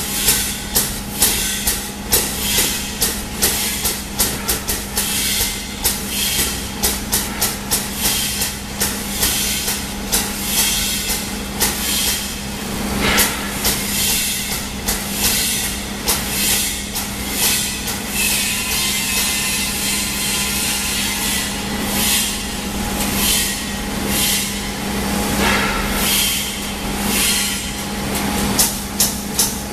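Toy stuffing machine running with a steady motor hum while its nozzle blows fibre filling into a plush toy in rapid, repeated hissing bursts of air.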